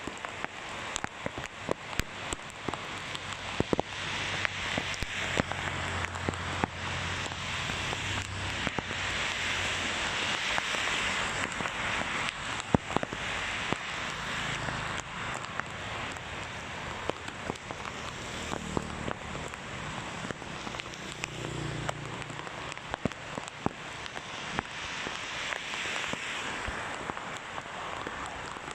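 Heavy rain pouring onto a paved road and gutter, a dense steady hiss scattered with sharp ticks and knocks. Vehicles go by on the wet road now and then, adding a low rumble for a few seconds at a time.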